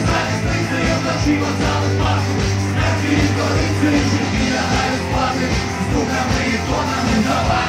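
A live rock band playing loud through a club PA, with a driving drum beat and a steady bass line. A vocalist sings and shouts into the microphone over the band.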